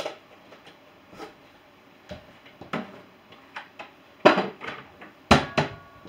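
Dishes and plastic containers knocking and clattering as a dishwasher is unloaded and the things are put away, with cupboard knocks among them. A string of separate clacks, the two loudest a little after four and five seconds in.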